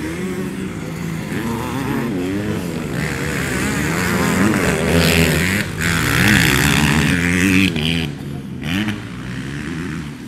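Motocross dirt-bike engines revving up and down as they go round the track, several at once. One bike passes close, loudest about five to eight seconds in, then fading.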